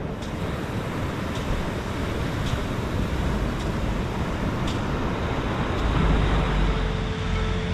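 Steady rushing outdoor background noise, with faint ticks about once a second for the first few seconds; a steady low tone comes in near the end.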